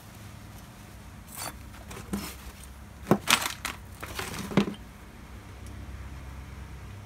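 Metal parts and tools clinking and knocking against each other on a workbench: a few scattered clinks, with a short cluster a little after the middle, over a low steady hum.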